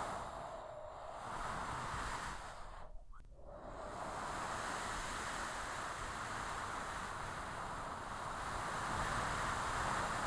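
Strong desert storm wind: a rushing hiss that swells and eases in gusts, dropping away briefly about three seconds in before building up again.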